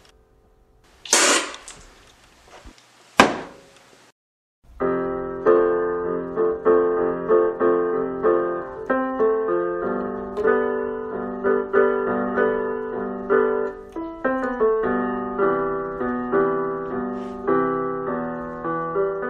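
Piano music, a steady run of notes and chords, begins about five seconds in. Before it come a short noisy burst and a single sharp knock.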